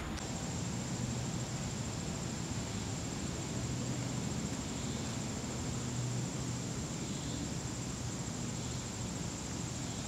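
Woodland ambience dominated by a steady, high-pitched insect trill, over an even hiss and a low rumble.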